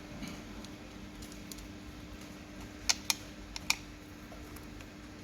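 Four sharp little clicks of a precision screwdriver and its bit being handled against the remote's parts, about three seconds in, over a steady faint hum.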